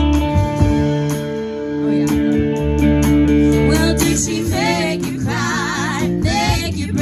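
Live rock band playing, with electric guitars and bass holding chords over drum hits. About four seconds in, a singer comes in with long, wavering held notes.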